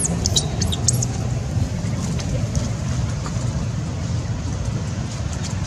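Steady low rumble, with a few brief high-pitched chirps or squeaks in the first second.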